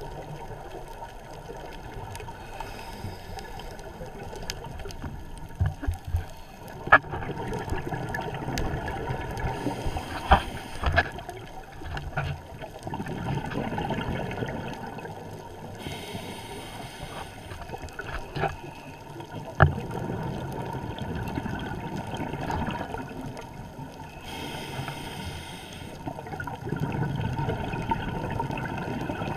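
Scuba regulator breathing heard underwater through a camera housing: rumbling bursts of exhaled bubbles alternating with the hiss of inhalation, with a few sharp knocks.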